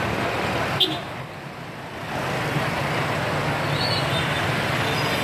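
Motorbikes and cars passing along a busy road, a steady rush of engine and tyre noise, with one sharp click just under a second in.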